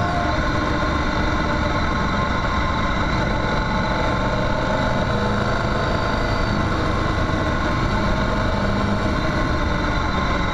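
Motorcycle engine running steadily while riding on a dirt road, with a constant noisy rush of wind and road noise under it.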